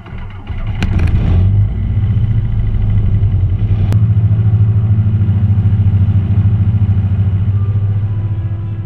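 Grob 109B motor glider's piston engine and propeller running steadily, heard from inside the cockpit with a fast, even throb; it swells about a second in and holds.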